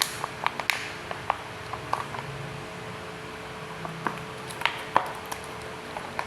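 Scattered light clicks and taps of tableware and food items being handled and set down, over a faint steady hum.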